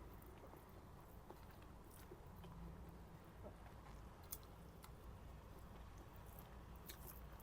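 Faint chewing of chicken biryani, with a few soft clicks scattered through.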